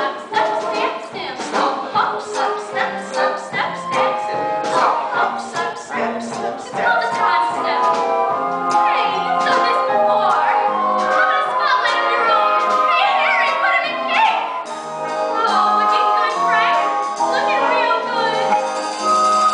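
Live pit orchestra with brass playing a show tune: short accented chords in an even beat for the first several seconds, then longer held melodic lines, with singing over it.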